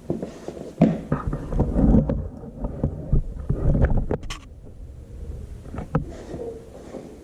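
Upper bolster seal of a Farmall Super MTA tractor being driven home with a socket: irregular dull metal thumps and knocks, with a sharper knock about four seconds in, dying away near the end as the seal seats.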